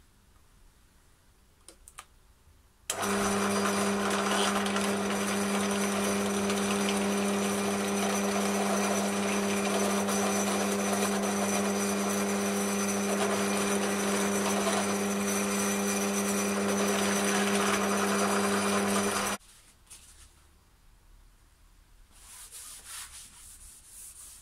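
Electric power sander running steadily against wood for about sixteen seconds, with a steady hum under the rasp of the abrasive; it starts and stops abruptly.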